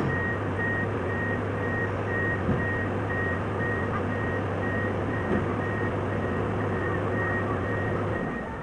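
SANY SR285R rotary drilling rig's travel alarm beeping at an even pace over the steady drone of its diesel engine as the crawler rig moves. The engine drone drops away near the end.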